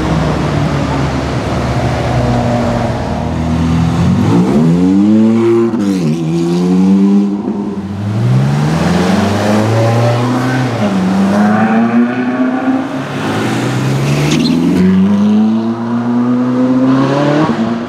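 Ferrari supercar engines accelerating hard through the gears: a low engine rumble at first, then from about four seconds in a run of rising revs, each climbing in pitch and dropping back at a gear change, several times over.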